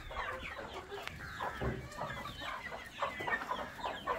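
A large flock of Sasso chickens clucking and chirping, many short calls overlapping.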